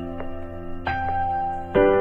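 Slow, gentle instrumental background music of held chords, a new chord coming in about a second in and another near the end.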